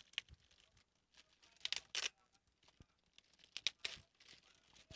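Clear plastic packaging bag crinkling and tearing as it is opened by hand, in short scattered bursts, the loudest about two seconds and four seconds in.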